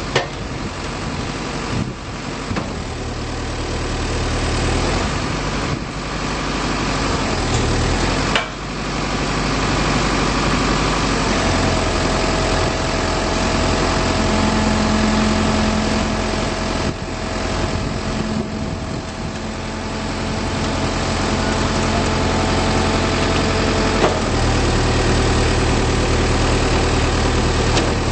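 2008 Volvo BL60 backhoe loader's diesel engine running steadily, its note shifting several times as load or throttle changes. A steady whine joins in for about twelve seconds in the middle, and there are a couple of sharp clicks.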